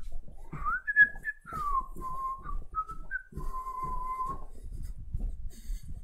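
A person whistling a few notes: a rising glide to a high note, short notes stepping down and back up, then one long held lower note near the middle. Low knocks from footsteps and the carried device run underneath.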